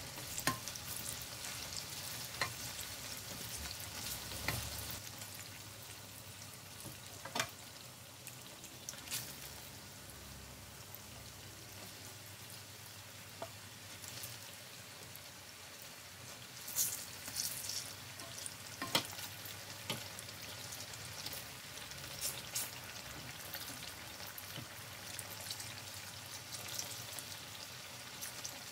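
Battered eggplant slices deep-frying in oil: a steady sizzle with sharp crackles and clicks now and then as a slotted spatula turns and lifts the slices in the pan.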